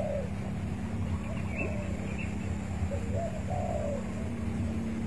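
Spotted dove (tekukur) cooing: one phrase at the start and another about three seconds in, over a steady low hum.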